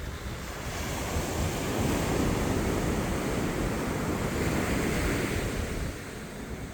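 Sea waves breaking and washing up on a sandy beach: a rushing surge that swells about a second in and eases off near the end, with wind buffeting the microphone.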